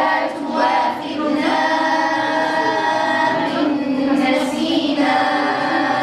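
A group of girls and a woman chanting together in unison, in long, drawn-out notes: a collective Quran recitation at a memorisation circle.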